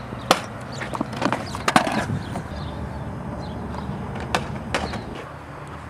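RipStik caster board rolling on a concrete sidewalk: a steady low rumble of its small wheels, broken by several sharp clacks.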